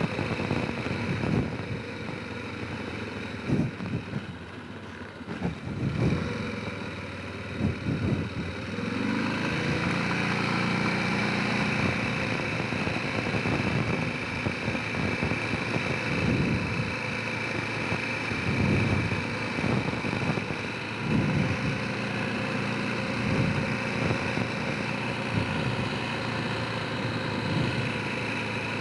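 Honda Rincon 650 quad's single-cylinder engine running under way, its pitch rising and falling with the throttle, with repeated low knocks.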